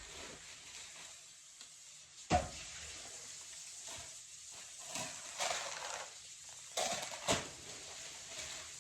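Crinkling and rustling of packaging as items are handled, with a couple of sharp knocks, the loudest about two seconds in and another near the end.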